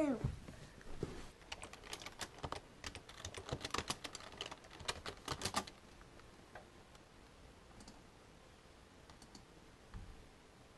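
Clicking at a computer: a burst of quick clicks for about four seconds, thinning out to a few scattered clicks, with a soft thump near the end. A brief falling voice sound opens it.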